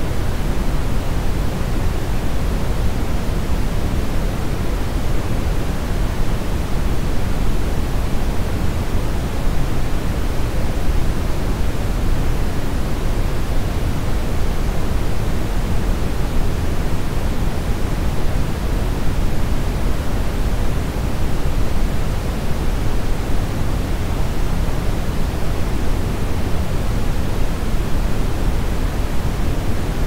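Brown noise: a steady, unchanging hiss weighted heavily toward the low end, so it sounds deep and muffled rather than bright.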